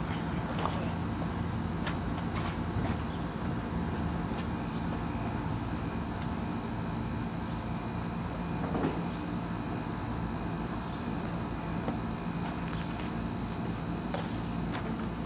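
Steady outdoor background: a low, even hum with insects chirping high and steadily, and a few faint clicks and knocks.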